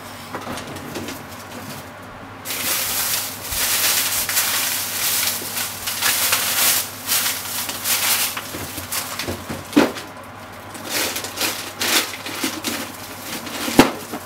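Carbonara cream sauce with bacon and onion simmering in a frying pan: a dense sizzling hiss with irregular bubbling pops sets in about two and a half seconds in. A few louder, deeper plops come near the end.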